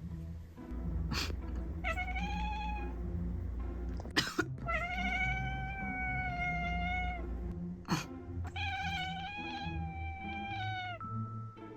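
Tuxedo cat answering a person's short coughs with long, drawn-out meows: three sharp coughs, each followed by a meow, the last two held for about two and a half seconds.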